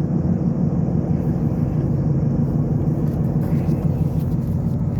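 Car driving along at a steady speed: a low, even engine and road rumble.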